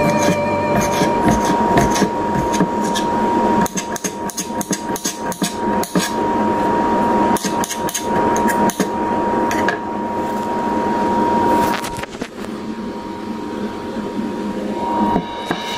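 Kitchen knife chopping tomatoes on a cutting board: irregular sharp taps of the blade on the board, thinning out after about twelve seconds, over a faint steady tone.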